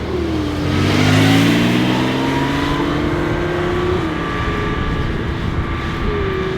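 Mercedes G63 AMG's twin-turbo V8 through an Akrapovic exhaust, accelerating. Its note climbs steadily in pitch for about three seconds and is loudest about a second in, then drops slightly and holds steady.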